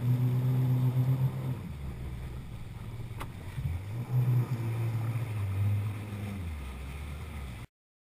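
Kawasaki Ultra LX jet ski engine running at low speed. Its hum drops off for a couple of seconds and then picks up again as the throttle changes, and the sound cuts off abruptly near the end.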